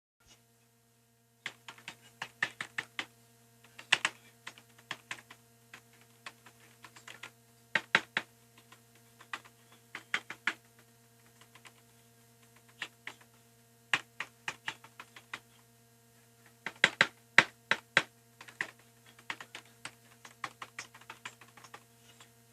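Keys of a mechanical keyboard being typed on, in irregular runs of clicks and clacks with short pauses between bursts.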